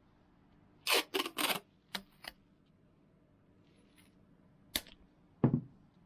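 Masking tape pulled off the roll in three short rips about a second in, followed by a few light clicks and a dull knock on the workbench near the end.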